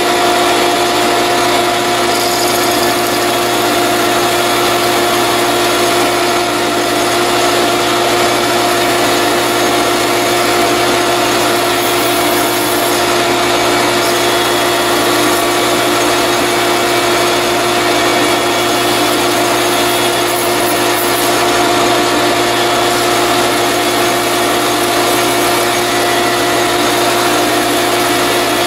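Small benchtop metal lathe running with a steady whine from its motor and drive while the cutting tool takes light cuts from the spinning workpiece held in the three-jaw chuck.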